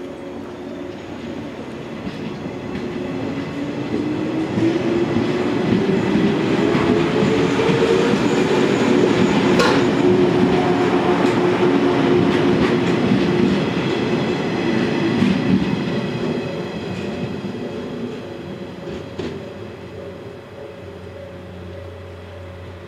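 Yellow JR West 115-series electric train, Okayama depot set A16, passing close by as it pulls away, with wheels clattering over the rail joints. Its traction motor hum rises in pitch as it gathers speed. The sound swells to its loudest about halfway, with one sharp clack, then fades as the train draws off.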